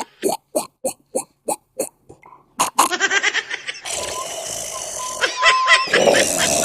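A man's loud, exaggerated comic snoring: a quick run of short snorts, about three a second, then a longer, drawn-out rasping snore from about three seconds in.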